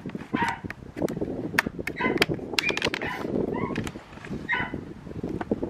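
Sharp clicks and rattles of a flathead screwdriver prying plastic retaining clips on a Jeep's factory grille insert, mostly in the first three seconds. Short animal calls sound several times over it.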